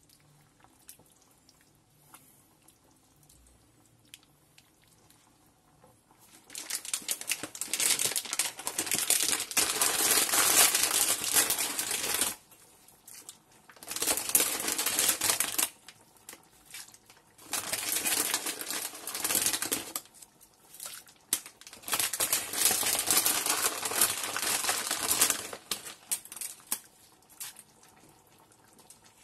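Pot of water with tagliatelle nests bubbling at the boil, a crackling hiss that comes in four spells of a few seconds each, with short quiet gaps between them.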